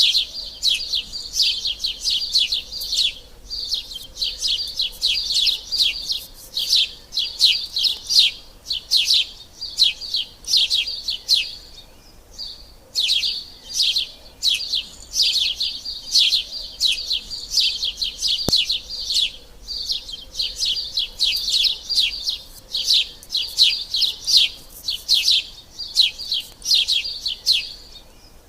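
Sparrows chirping continuously, a rapid stream of short, high chirps with a brief pause about twelve seconds in.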